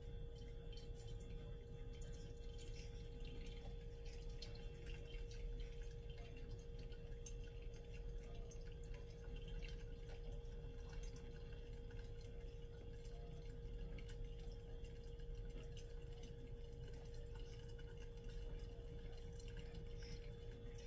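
Hot water from an electric kettle poured in a thin stream into a mug and over a pour-over coffee filter: a faint trickle and drip, over a steady hum.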